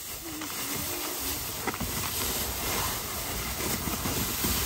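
Steady outdoor hiss of wind and a shallow river, with the crinkle of a foil-backed sleeping mat being spread out by hand and a few faint distant children's voices.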